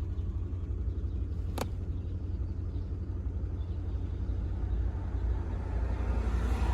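1998 Toyota 4Runner engine idling with a steady low rumble while it misfires on cylinders 1 and 4, with a single sharp click about one and a half seconds in.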